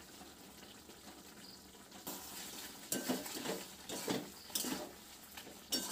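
Spatula scraping and clinking against a metal kadai as chicken in a thick masala is stirred, in short strokes about every half second, starting about two seconds in.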